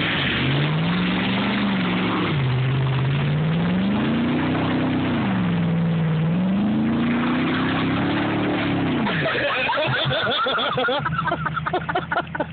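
Ford pickup truck's engine revving hard under load in deep mud, its pitch climbing and falling in several long surges before dropping away about nine seconds in.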